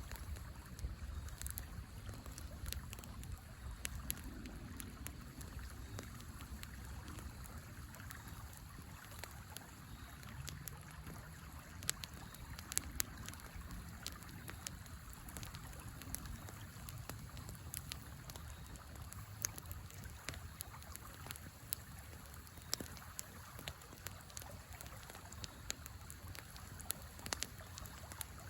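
Campfire crackling, with scattered sharp pops and snaps, over the steady low rush of river water.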